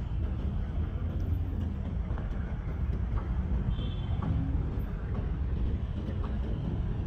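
City street ambience: a steady low rumble of road traffic, with a few faint knocks and a brief high-pitched tone near the middle.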